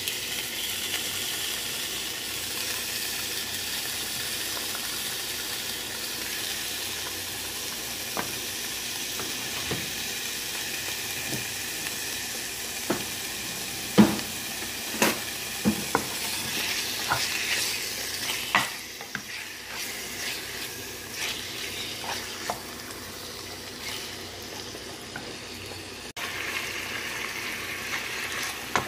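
Sliced chicken sizzling in hot oil in a nonstick saucepan as it starts to fry. A run of sharp knocks and clatter about halfway through comes as the pieces are moved about and stirred with a wooden spoon.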